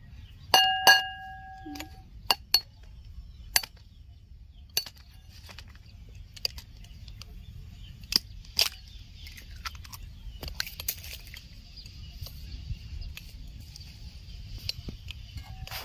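An egg knocked twice against the rim of a ceramic bowl, the bowl ringing briefly after each knock. Scattered light clicks and taps against the bowl follow, with one more short ring of the bowl near the end.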